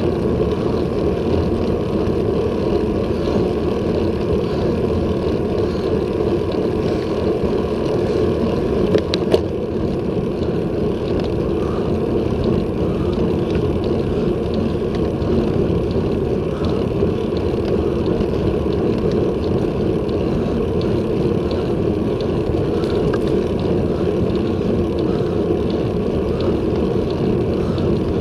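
Steady wind and road rumble on a handlebar-mounted action camera as a road bike climbs at about 20 km/h, with a single sharp click about nine seconds in.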